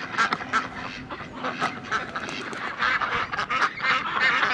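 A flock of Indian runner and crested ducks quacking and chattering, with many short calls in quick succession.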